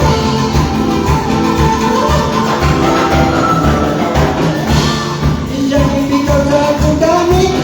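Band playing upbeat Latin-style worship music, with a steady bass-and-drum beat under held melody lines.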